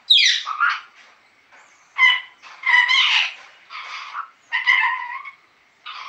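Green parrot calling: a sharp falling squawk, then a run of short squawks and chattering calls about a second apart.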